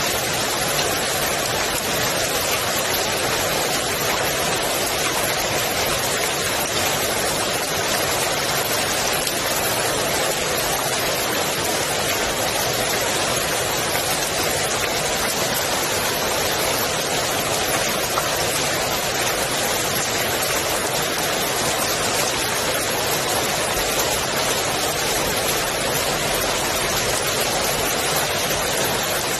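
Steady rain falling on the water of a swimming pool: a dense, even hiss of countless drops that does not change.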